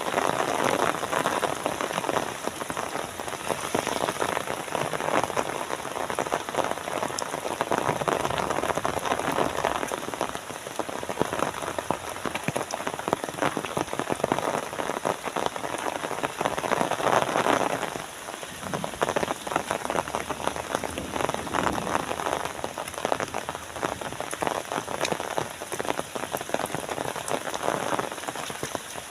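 Rain falling steadily, a dense patter of many drops, briefly louder a little over halfway through.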